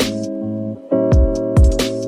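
Background music: an electronic track with sustained chords, deep kick-drum hits that drop in pitch, and light hi-hat ticks.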